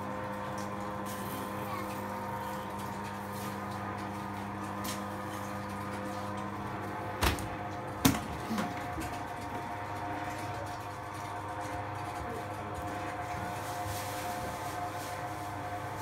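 Steady mechanical hum, with two knocks about seven and eight seconds in as a side of pork belly is handled on a wooden butcher's table.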